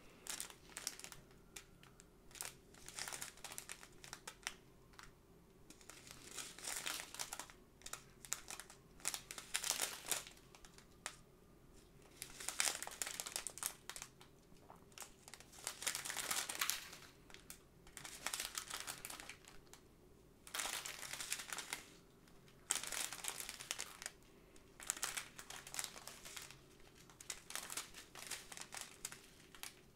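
Small clear plastic bags of diamond-painting drills crinkling as they are handled and turned in the hands, in irregular bursts with short pauses between.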